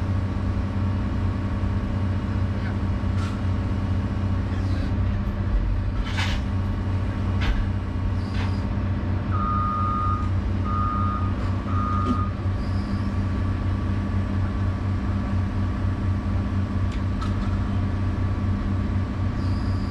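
Excavator's diesel engine running steadily, heard from inside the cab. About ten seconds in, a backup alarm beeps three times, and a few sharp knocks are scattered through.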